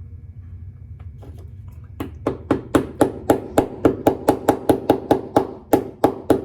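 Soft-faced hammer tapping a Douglas fir plug down into a bored hole in wooden planking. Rapid, even blows, about four a second, start about two seconds in.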